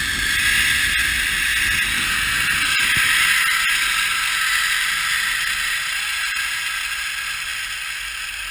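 Zipline trolley pulleys running along a steel cable: a steady high whir with a few light clicks, loudest about three seconds in and then fading as the rider slows toward the landing.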